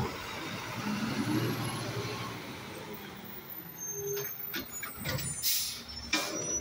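Automated side-loader garbage truck's diesel engine revving up as the truck pulls away from the curb, with a brief loud hiss of its air brakes a little past five seconds in and a few knocks after it.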